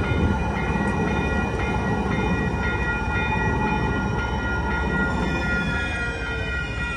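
San Diego MTS trolley light rail train running past on the rails while the railroad crossing bells ring steadily. The train's rumble thins as the last car clears about six seconds in, with a whine falling in pitch as it goes, leaving the bells.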